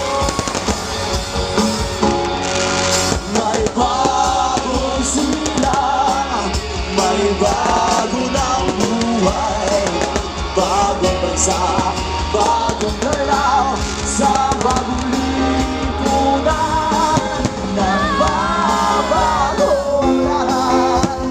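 Loud music: a song with a singer over band accompaniment, playing steadily.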